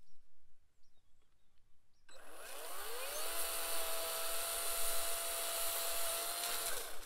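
Small electric chainsaw spinning up with a rising whine about two seconds in, running at a steady whine while it cuts dry garden stalks, then winding down near the end.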